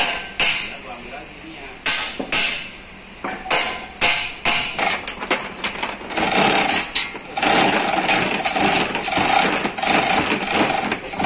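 Workshop metalwork: sharp hammer knocks on metal at irregular intervals, then from about six seconds a fast, continuous rattling hammering with a ringing tone.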